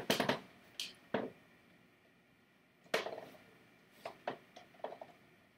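A paintbrush working oil paint on a canvas: a few short scrubbing strokes and light taps, spaced out, with a longer stroke about three seconds in.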